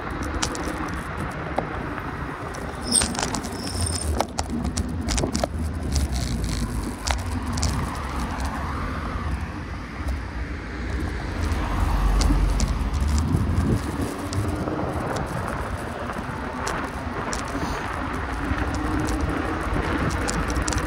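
Low rumble of a vehicle in motion, with small rattles and clicks scattered through it.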